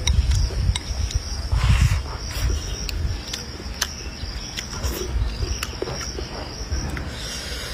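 Close-up eating sounds: chewing, with scattered sharp clicks, over a steady high chirring of insects in the background.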